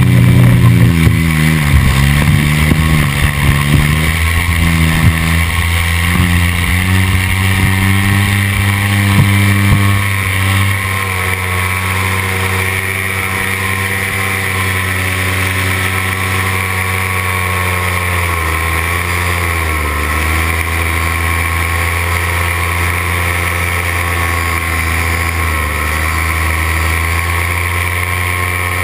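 Paramotor engine and propeller running at high power. The pitch wavers and dips several times in the first ten seconds with throttle changes, then settles to a steadier, slightly quieter note, with a couple of brief dips later on.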